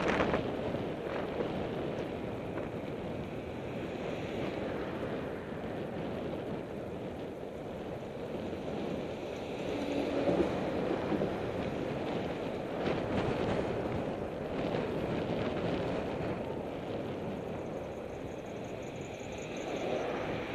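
Steady rush of wind on the microphone of a camera riding a bicycle, mixed with road traffic; a tanker truck passing close alongside makes the sound swell about halfway through. A few short knocks come now and then.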